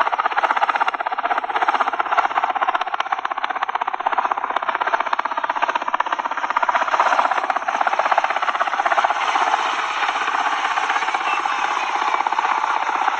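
Helicopter rotor chopping in a rapid, even beat, steadier in the last few seconds.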